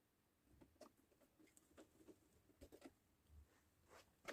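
Near silence, with faint scattered soft taps and rustles of a brush dabbing epoxy resin onto fibreglass cloth.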